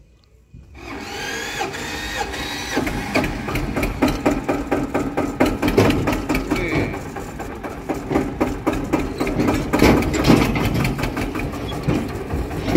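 Eicher tractor's diesel engine running with a rapid, steady clatter as the tractor pulls the ride trolley away, coming in about a second in.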